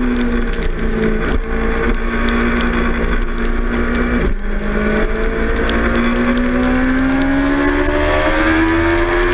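2006 Suzuki GSX-R 600's inline-four engine, heard from onboard the bike, settling to a steady part-throttle note through a slow corner, with a brief break about four seconds in. It then rises steadily as the bike accelerates out of the corner.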